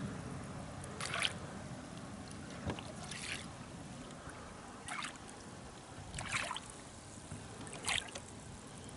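Wooden Suick Thriller jerkbait jerked through the water on a rod: five short, faint swishy splashes, one with each pull, about every one and a half to two seconds.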